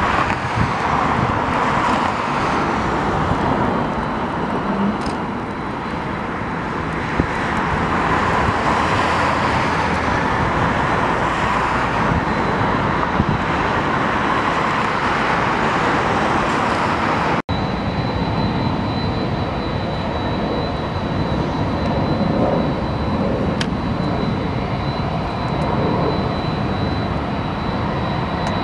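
Jet airliner engines running as planes pass the runway: a steady, loud noise. About two-thirds of the way through, the sound breaks off for an instant, and after that a steady high-pitched whine runs alongside the noise.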